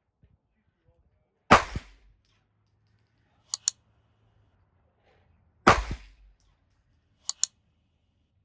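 Two single 9mm pistol shots from a Canik METE MC9L, about four seconds apart, each followed about two seconds later by a quick pair of sharp high clicks.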